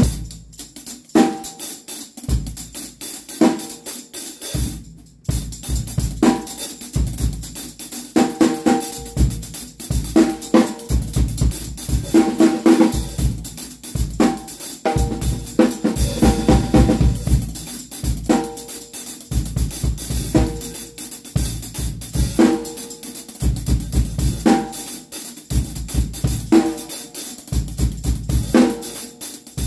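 Drum kit played in grooves and fills, kick and snare strokes under a continuous jingle of steel tambourine jangles mounted on the drumstick. There is a brief pause about five seconds in before the playing resumes.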